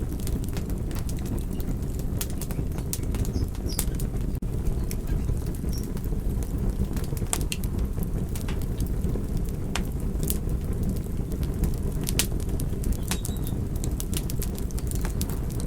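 Campfire burning: frequent sharp crackles and pops of burning wood over a steady low rumble of flames.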